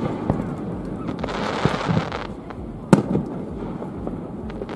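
Aerial firework shells bursting: a sharp boom about three seconds in, with lighter pops and a stretch of hiss a little before it.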